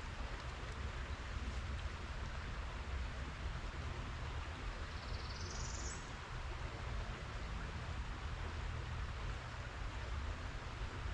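Steady outdoor background noise with wind rumbling on the microphone. About five seconds in, one high rising chirp, a bird call, lasts a second or so.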